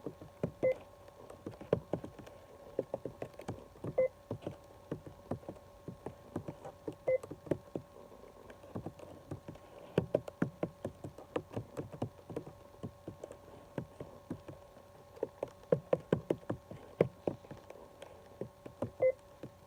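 Computer keyboard keys being typed in quick, irregular runs of clicks. A short beep sounds four times among the keystrokes.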